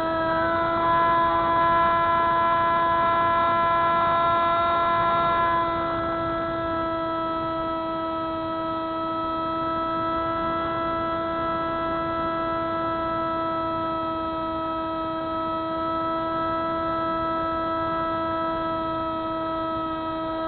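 Spyhawk FPV model plane's electric motor and propeller running in flight: a steady whine of several held tones. It is a little louder for the first six seconds or so, then settles slightly quieter.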